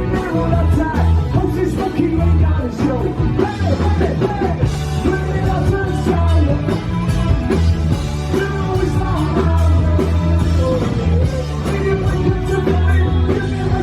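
Live rock band playing a loud, fast song with a singer's voice over bass and drums.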